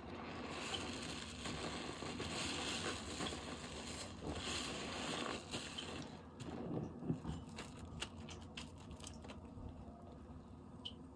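Dish-soap lather on a sponge being squeezed and worked: a dense wet squishing for about the first five seconds, then a run of separate crackles and pops.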